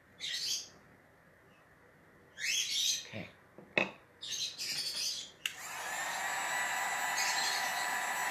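An electric heat gun switches on about five and a half seconds in and runs steadily, a rush of hot air with a thin whistling tone, used to dry fresh paint. Before it come a few short scratchy sounds and a sharp click.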